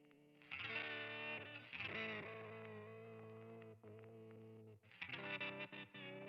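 Electric guitar played through effects, with distortion: chords struck about half a second in, again near two seconds and around five seconds, each left ringing.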